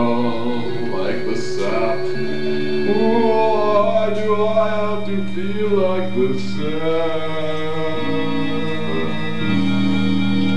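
A singer holding long, wavering sung notes over sustained accompaniment chords, which shift to new chords about every three seconds.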